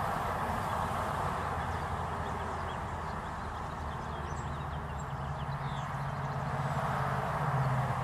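Steady hum of background traffic, with a low drone swelling near the end, as of a vehicle passing. Faint, short, high calls of small birds come through a few times in the middle.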